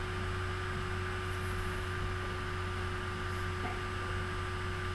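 Steady hiss with a low electrical hum and a few faint steady tones: the background noise of a computer lecture recording.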